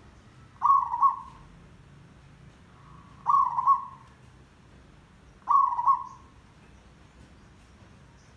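Zebra dove cooing: three short phrases of quick, rolling notes, about two and a half seconds apart.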